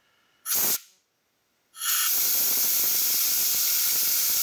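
Compressed-air blow gun with a choked-down nozzle: a short blast about half a second in, then from about two seconds a steady, loud hiss as the air jet spins an apple held in the palm.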